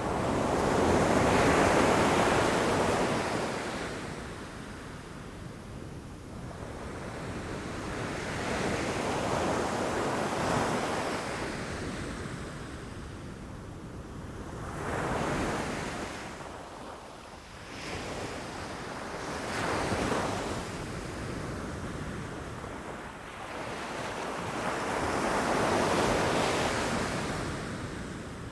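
Ocean waves breaking against rocks: a rushing surge of surf that swells and falls away about five times, each wave building to a peak and then receding.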